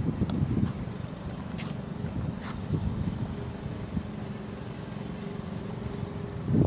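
An engine running steadily, a low drone with a faint held tone above it and a few light clicks.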